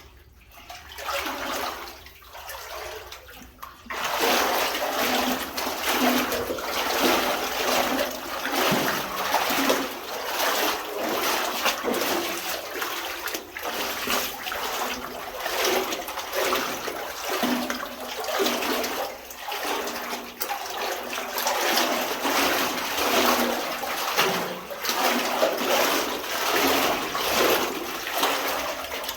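Legs wading through water in a flooded mine adit, the water sloshing and splashing in a steady stride rhythm that begins about four seconds in.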